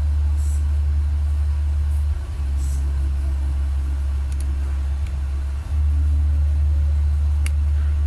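A loud, steady low hum that dips briefly a couple of times, with a few faint light ticks above it.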